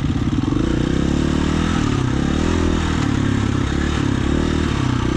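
Dirt bike engine running while riding a trail, its pitch rising and falling with the throttle.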